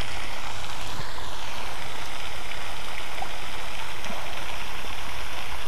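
Steady splashing hiss of a spray fountain in a pond, unbroken and even.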